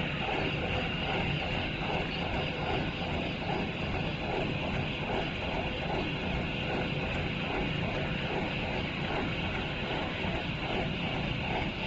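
Locomotive turntable's drive machinery running steadily, a constant mechanical hum with a soft pulsing of about two to three beats a second.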